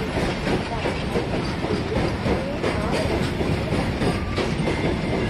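Freight train pulling out behind an ALCO WDG3A diesel-electric locomotive: the engine chugging under load while the wagons clatter over the rails, a steady, loud rumble.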